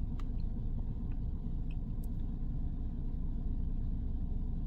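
Steady low rumble of the pickup truck's engine idling, heard from inside the cab, with a few faint taps.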